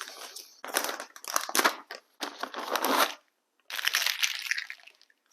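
Corrugated plastic wire conduit (split loom) crackling and crinkling as it is unpacked and handled, in three bursts of a second or so each.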